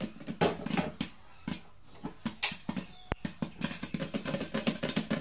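Popcorn kernels popping inside a lidded pan late in popping: a quick run of irregular small pops and clicks, with one louder crack about halfway through.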